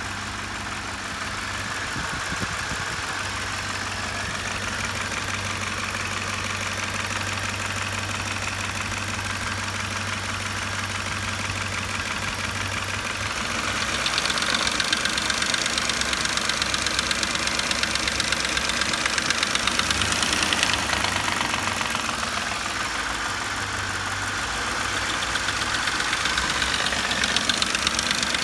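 Ford Explorer's 4.6-litre V8 running with a fast, steady ticking knock over the engine note, which the owner puts down to a knocking cam phaser. The knock gets louder about halfway through and again near the end.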